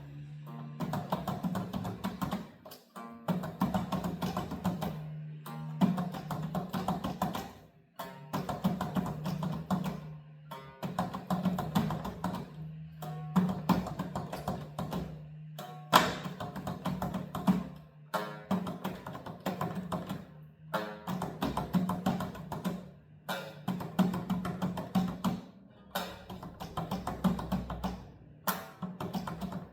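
Music with percussion, in phrases of about two seconds with short breaks between them, over a steady low note.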